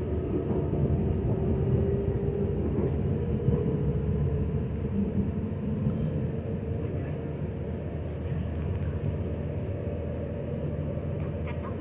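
Dutch Sprinter electric commuter train running at speed, heard from inside the carriage: a steady rumble of the train in motion.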